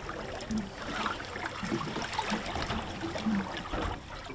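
Water lapping and trickling against the side of a drifting boat.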